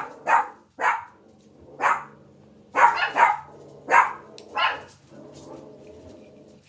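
A dog barking: about seven short, sharp barks over the first five seconds, then it stops.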